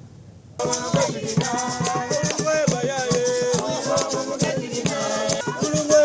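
Voices singing together to shaken rattles at a Congolese ceremony. The music starts suddenly about half a second in, after a short near-quiet gap.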